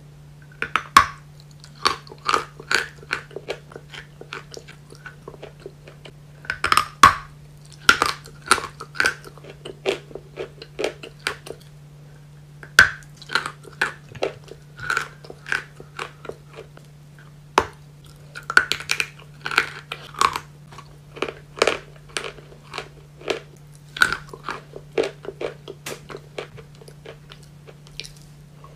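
Close-miked biting and chewing of white chalk pieces: sharp, irregular crunches coming in clusters, with crumbly chewing between them.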